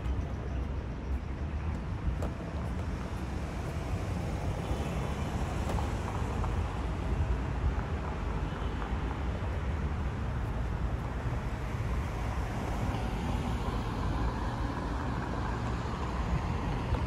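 Road traffic noise: a steady low rumble of cars on a nearby road, growing louder near the end as a car comes past.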